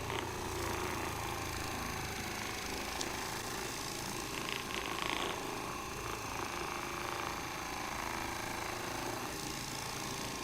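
Handheld percussion massage gun running steadily, its rapidly pulsing head working on the muscles of the lower back.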